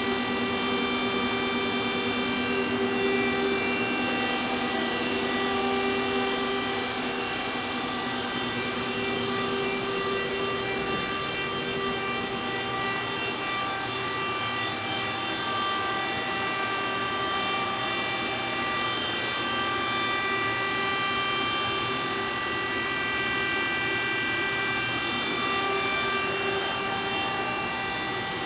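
Steady machine-shop hum of running machinery, with several high whining tones that slowly swell and fade.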